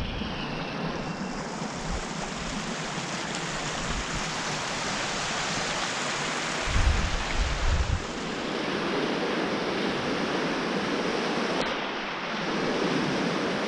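Rocky stream water rushing steadily over stones. Gusts of wind buffet the microphone about seven seconds in.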